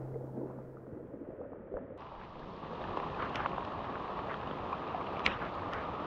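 Steady rain: an even hiss with scattered drop ticks that fills in about two seconds in, after a low hum fades out.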